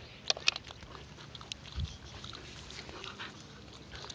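Pit bull puppy chewing and gnawing on a frisbee: two sharp clicks about half a second in, then fainter scattered clicks and rustling.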